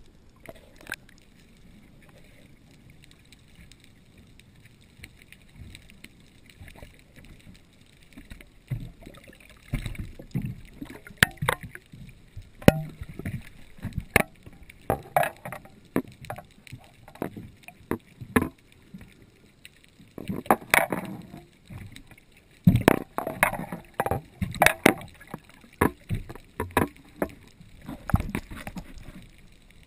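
Muffled underwater sound heard through a submerged camera: a low steady rush, then from about eight seconds in, irregular sharp knocks and short splashy bursts of water noise.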